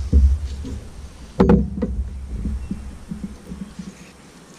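Handling noise with low thumps, then a sharp knock with a short ring about one and a half seconds in as a perforated metal exhaust baffle is set down on a wooden table, followed by lighter handling sounds that fade.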